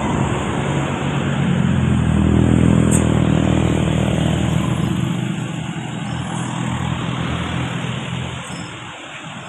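A bus passing close by on the road, its engine note building to a peak about two and a half seconds in and then fading away as it moves off, over steady road noise.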